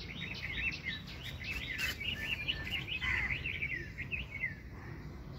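Small birds chirping busily: many quick, high calls overlapping one another, thinning out about four and a half seconds in.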